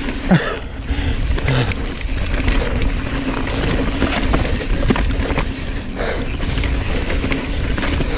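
Mountain bike riding fast down a rough, rocky downhill trail: wind rushing over the microphone, tyres on loose stones and the bike rattling and knocking over the bumps.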